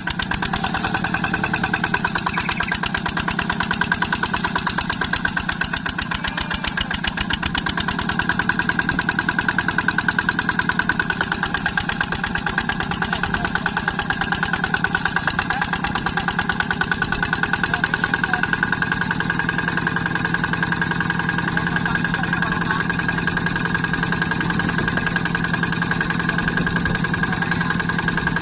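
Tractor engine running steadily with a fast, even beat of firing pulses.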